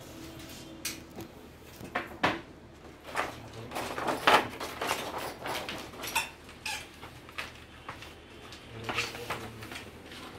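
Irregular clicks, taps and light clatter of hard parts being handled while LED backlight strips are fitted inside an opened TV, with one louder knock about four seconds in.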